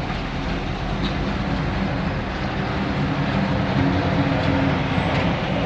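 Steady rumble of heavy engines with a low hum, which gains a slightly higher tone about halfway through.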